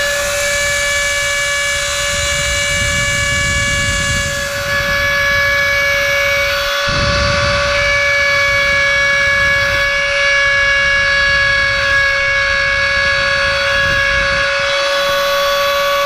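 Handheld rotary tool running at a steady high whine while its small bit grinds a band into a pipe stem. The rough grinding noise swells and fades as the bit is pressed in and eased off, and drops out briefly about seven seconds in.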